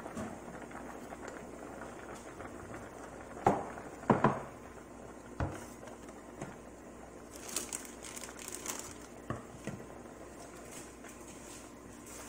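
Pot of rice and vegetables at a rolling boil, bubbling steadily. A spoon stirs through it, knocking against the pot a few times, loudest about three and a half to four seconds in, with scraping and splashing after that.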